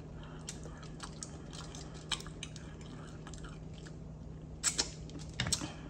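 Close-up eating of black mussels: scattered small clicks of shells and nails handling the mussels, and wet chewing, with a few louder clicks near the end.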